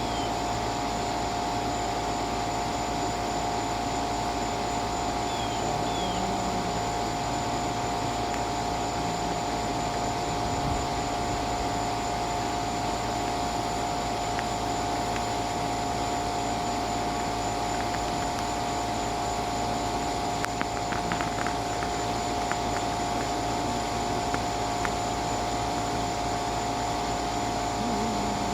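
A steady machine drone with a constant hum tone, unchanging throughout, with a few faint clicks about two-thirds of the way through.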